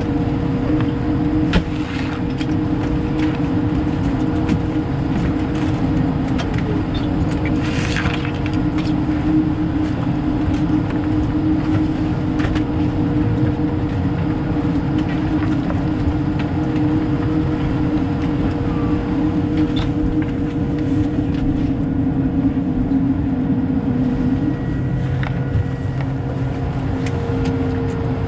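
An Airbus A220-300's Pratt & Whitney PW1500G geared turbofan engines running steadily, heard inside the cabin. Near the end a steady engine tone drops in pitch.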